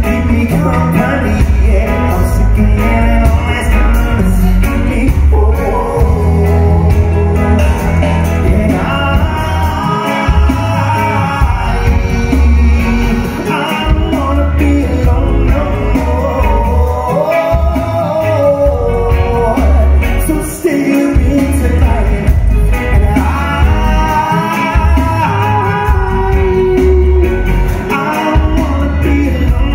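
Live band playing with a lead singer: two electric guitars, bass guitar and drum kit, loud, with heavy bass.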